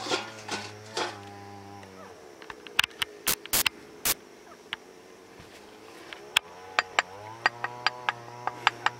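Sharp knocks of a blade or tool striking a wooden plank, irregular and scattered. A low drawn-out call sounds at the start and again from about two seconds before the end.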